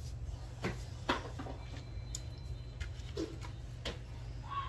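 A few light knocks and taps from hand-coating cheese sticks: a stick being worked in egg wash and moved between plastic bowls. They sound over a steady low hum.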